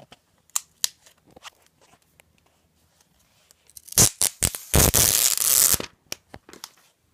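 Packaging being handled during an iPad mini unboxing: scattered light clicks and taps, then about four seconds in a few sharp snaps followed by a loud, roughly one-second burst of tearing packaging.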